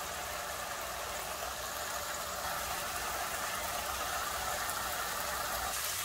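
Minced beef with onions and garlic sizzling steadily in olive oil in a pot, the meat browning and its juices frying off.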